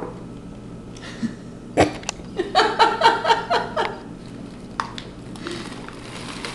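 A short laugh, a run of quick pitched pulses lasting about a second and a half, starting a little over two seconds in. Sharp clicks come just before it and again near the end.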